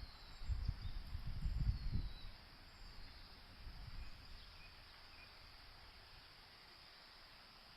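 Outdoor pond-side ambience: a steady, high insect drone like crickets. Wind buffets the microphone for the first two seconds, and a few faint bird chirps come through.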